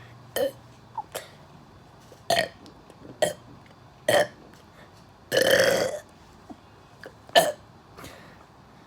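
A person burping over and over: a string of short burps with short gaps between them, and one longer burp about five and a half seconds in.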